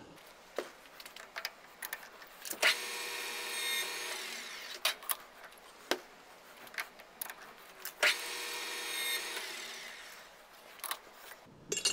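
Lathe tool cutting a chamfer on heavy-wall steel tubing, twice, each cut giving a ringing tone over a hiss for under two seconds. Short clicks and knocks fall between the cuts.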